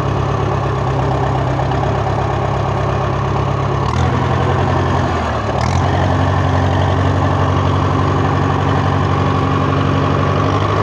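Small tractor's engine running steadily as it is driven; its note shifts and briefly dips about four to five seconds in, with a faint click, then settles into an even run.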